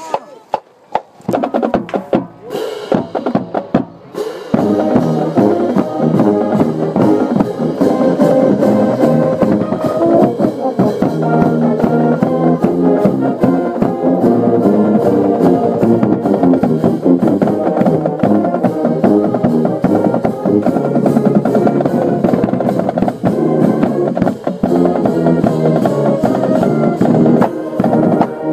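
Marching band playing the school fight song: a few drum strokes open it, then the full band of horns and drums comes in about four and a half seconds in and plays on loudly.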